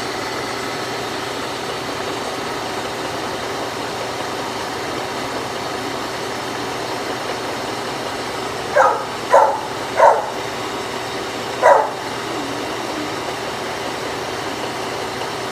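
Brown & Sharpe 3A universal milling machine running steadily, its 3-inch arbor-mounted cutter turning at about 120 RPM and milling a groove in a nitrile-rubber-coated steel roller under power table feed. About nine seconds in, a dog barks four times in quick succession.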